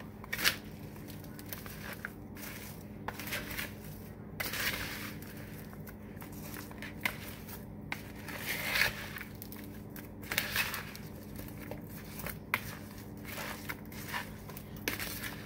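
Thin-sliced ginger root being tossed in salt and sugar with a plastic bowl scraper in a plastic bowl: irregular wet rustling and scraping, with light clicks as the scraper knocks the bowl.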